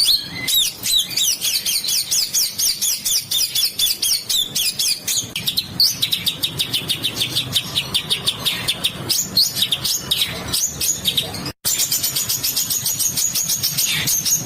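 Songbird masteran recording: rapid runs of harsh, rasping high notes repeated several times a second, in long continuous trains. There is a brief cut to silence about two-thirds of the way through, then the same rough phrases resume.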